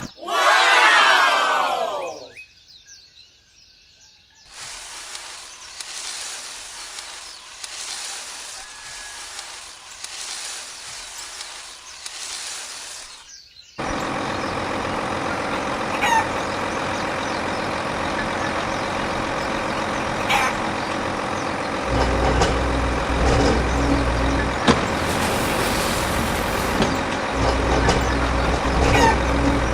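A falling sweep at the start, then a vehicle engine running steadily from about halfway through, joined by a deeper low rumble near the end.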